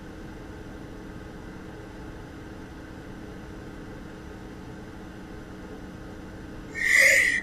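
Steady low background hum, then near the end a sudden loud breathy intake of breath: the gasp of a sneeze building in a woman with a cat allergy.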